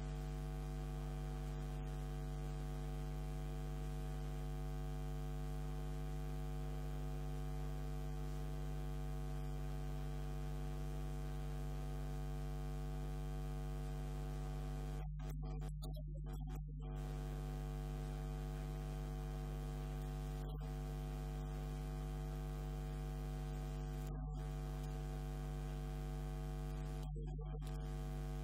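Steady electrical mains hum: a low buzz with a stack of many evenly spaced overtones.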